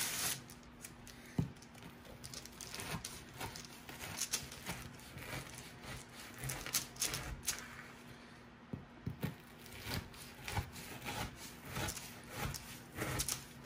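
Kitchen knife cutting through a slab of Rice Krispies treats on parchment paper: a run of short, irregular crackles and scrapes as the blade presses down and drags through.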